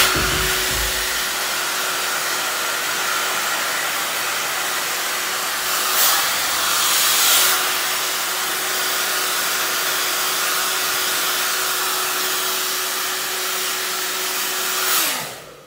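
Handheld hair dryer blowing steadily with a constant motor hum. The airflow swells briefly twice around the middle, and near the end the dryer is switched off and its motor winds down.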